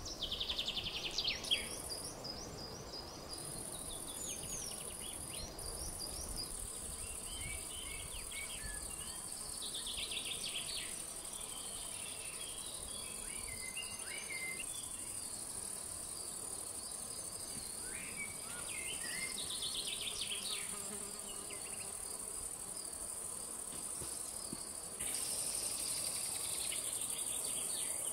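A steady high-pitched insect drone, like crickets, with songbirds singing short chirping and trilling phrases several times over it. The drone jumps louder about three seconds before the end.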